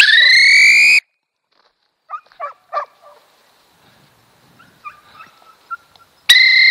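Two loud, steady blasts on a dog-training whistle: one about a second long at the start and a longer one near the end, each rising slightly in pitch as it begins. Between them come three short animal calls and a few faint chirps.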